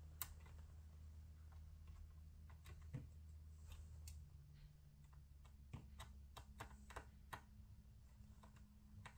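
Faint, scattered clicks and taps of a precision screwdriver and small screws being worked on a laptop case, over a low steady hum.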